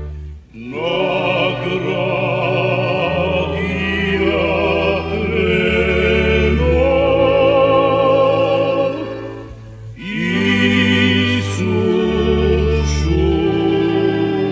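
A song: a solo singer holds long notes with wide vibrato over sustained low accompaniment notes. There are two phrases, with a short break just before ten seconds in.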